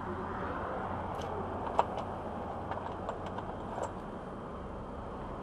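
Small clicks and taps of gloved hands handling parts in an engine bay over a steady background hum. There is one sharp click about two seconds in and a few fainter ticks a second or two later.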